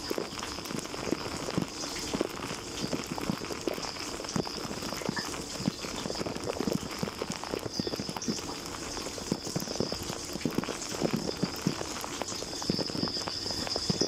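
Dishwasher spray jets pelting water against plates, racks and tub, heard from inside the running machine: an irregular patter of splashes and drips over a steady watery hiss. A thin high whine runs underneath, fading for a few seconds in the middle and returning.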